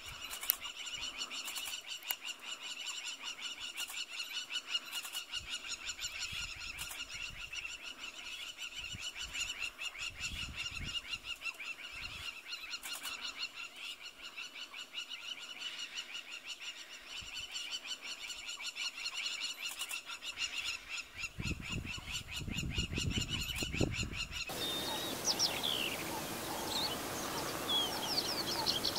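Natural bush ambience: a steady, high-pitched, fast-pulsing chorus with a few low rumbles. It switches abruptly near the end to birds chirping.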